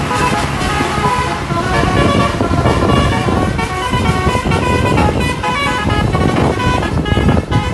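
Telolet bus horn: a multi-tone air horn playing a rapid tune of short notes that step up and down in pitch, over steady engine and traffic noise.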